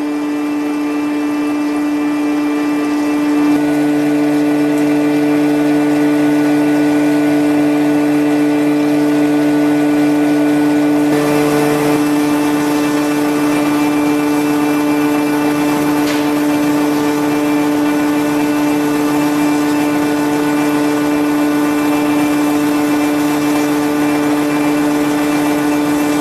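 Screw-making factory machinery running with a steady hum of several held tones. A lower tone joins about three and a half seconds in, and more hiss comes in around eleven seconds in.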